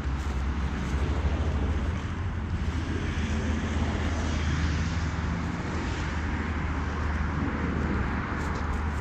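Steady low outdoor rumble with a hiss that swells and fades between about three and six seconds in.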